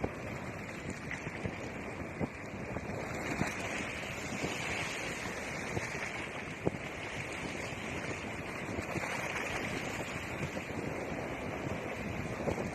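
Sea waves washing in, a steady rush of surf that swells and eases twice, with wind buffeting the microphone.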